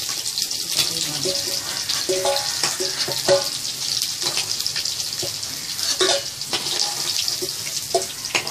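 Batter-coated prawns deep-frying in hot oil in a wok, a steady crackling sizzle, the prawns fried to golden brown. A few sharp clicks of a metal slotted spatula against the pan as the prawns are lifted out.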